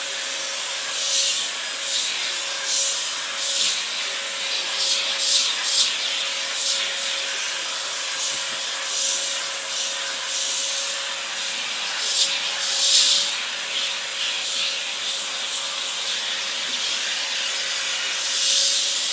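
Dyson vacuum cleaner running steadily, a constant motor hum with one fixed tone under a high suction hiss. The hiss swells into brief rasps as the brush head is stroked over a dog's short coat.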